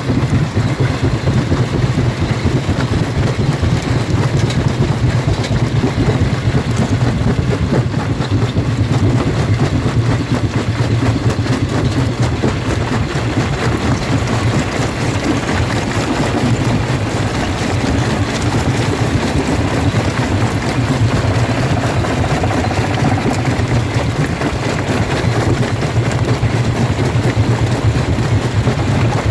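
Jaw rock crusher running and crushing stone: a steady low machine hum with a dense, continuous clatter of rock knocking and cracking in the jaws.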